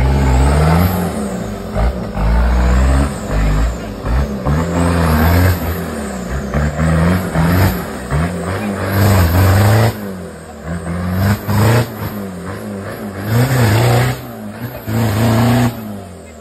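Off-road 4x4 engine revving hard in repeated surges, its pitch rising and falling every second or two as the vehicle is driven under load through a competition stage. It fades away near the end.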